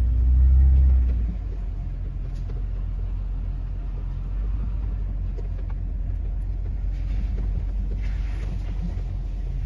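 Truck driving slowly along a rough forest trail with a trailer in tow: steady low engine and road rumble, louder for the first second or so.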